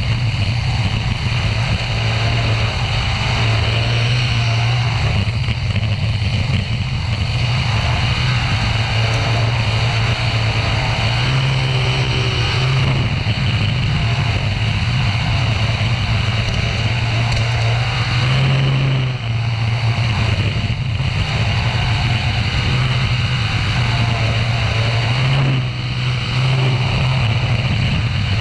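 Winged dirt-track sprint car's engine running hard at racing speed, heard from on board the car, with a steady loud drone. The engine note dips briefly twice, about two-thirds of the way through and again near the end.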